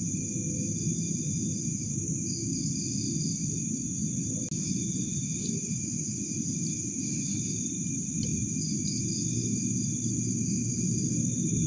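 Crickets and other night insects chirring steadily in several high bands, over a continuous low rumbling noise.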